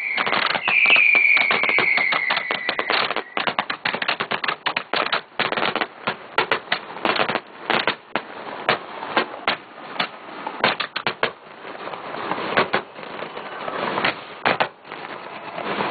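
Fireworks going off at close range. A falling whistle sounds for about the first three seconds, then comes a dense, irregular run of sharp pops and crackles.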